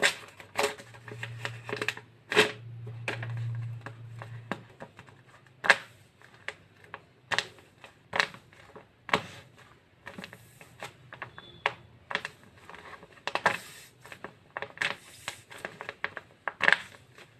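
Paper craft materials being handled: irregular taps, clicks and crinkles of paper and plastic, with a low hum for a few seconds near the start.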